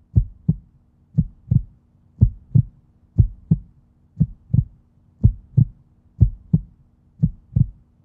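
Heartbeat: deep double thumps, lub-dub, repeating steadily about once a second.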